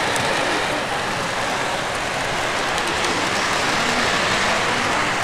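Model train rolling along a layout's track: a steady rumble and hiss of wheels on rail.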